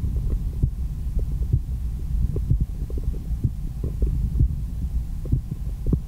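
A human heartbeat heard through an MD One stethoscope's chest piece held on the chest: regular short thuds over a steady low rumble.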